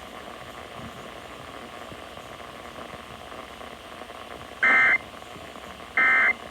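Emergency Alert System end-of-message data bursts: short, harsh, buzzy warbles of SAME digital code, the signal that closes an EAS broadcast. After a few seconds of faint hiss, two bursts of about a third of a second come roughly a second apart, starting about four and a half seconds in.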